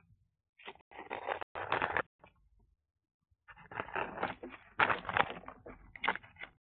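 European hedgehog right up against the camera microphone, making irregular bursts of scratchy snuffling and rustling. The sounds come in a short cluster at first, pause for about a second, then grow louder and busier.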